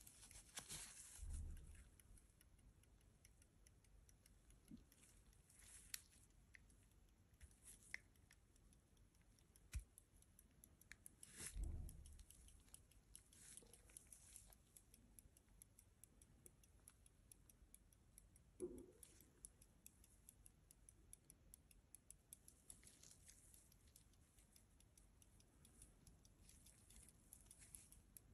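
Rapid, steady ticking of the verge escapement of a circa 1760 Pierre Michaud verge fusee pocket watch, running with its movement exposed. Gloved handling of the silver case adds a few soft knocks and rubs, the loudest about a second in, near 12 seconds and near 19 seconds.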